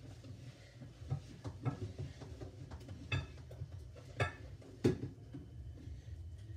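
Dishes being washed by hand in a stainless steel sink: scattered knocks and clinks of dishware against the sink and each other, the loudest about three-quarters of the way through, over a steady low hum.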